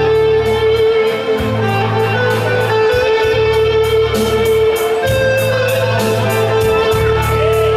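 Band playing an instrumental piece: a plucked electric string melody over a steady held drone note, with bass notes and a regular cymbal tick keeping time.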